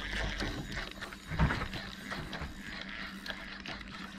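Spinning reel being cranked, reeling in a hooked fish, with small quick ticks from the reel and one thump about a second and a half in.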